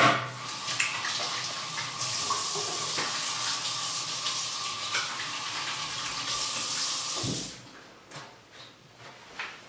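Kitchen tap running as hands are washed under it, with a faint steady whistle in the flow; the water is shut off about seven seconds in, and a few light knocks follow.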